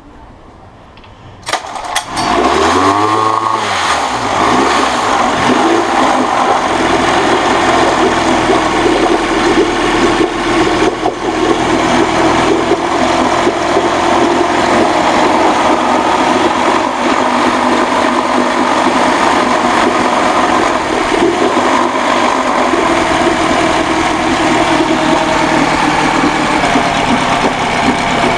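Honda B100 10 hp four-stroke outboard motor starting on choke: it catches about a second and a half in, revs up, then settles into steady running.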